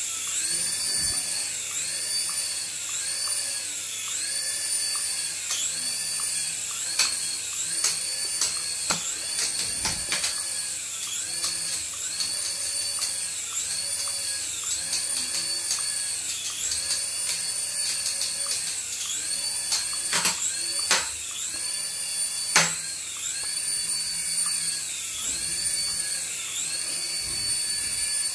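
Small electric motors and coaxial rotors of a toy RC helicopter hovering, a high whine whose pitch rises and falls about once a second as the motor speed changes. A few sharp knocks stand out, the loudest about 22 seconds in.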